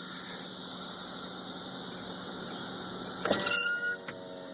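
Periodical cicadas in full chorus: a continuous, high-pitched droning that is absolutely deafening. About three seconds in, a short squeaky pitched sound cuts in over the chorus.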